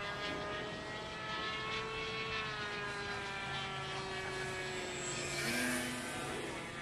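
Distant drone of an RC model airplane's NGH 9cc two-stroke gasoline engine, throttled back on a landing approach, its pitch sinking slowly and steadily. A short rush of noise comes about five and a half seconds in.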